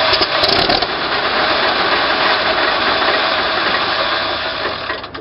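M4 Sherman tank's engine just after start-up, running loud and rough, with a few sharp pops in the first second. The sound drops away abruptly near the end.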